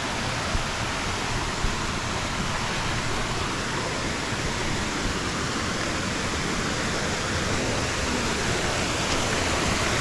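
Small waterfall cascading over rocks into a shallow creek: a steady rush of water that grows a little louder near the end.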